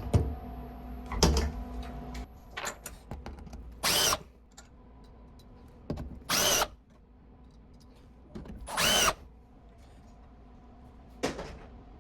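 Power drill driving screws to hold down a workpiece, in three short bursts about 4, 6.5 and 9 seconds in. Scattered clicks and knocks from handling come between the bursts, mostly in the first few seconds.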